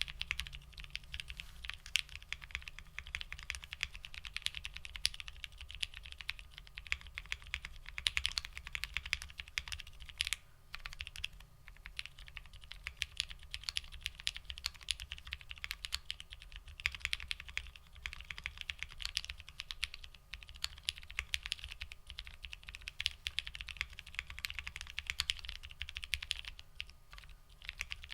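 Fast continuous typing on a Bakeneko60 custom mechanical keyboard with linear frankenswitches (Moyu Black stems in Hyperglide black housings), an FR4 plate and GMK ABS keycaps: a dense stream of keystroke clacks, with brief pauses about ten and twenty seconds in.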